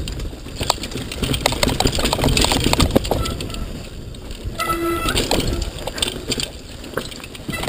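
Downhill mountain bike clattering over a rough dirt trail at speed: tyres rumbling on dirt, the bike's chain and frame rattling with many sharp knocks over bumps and roots, and wind on the microphone. A short high tone sounds about five seconds in.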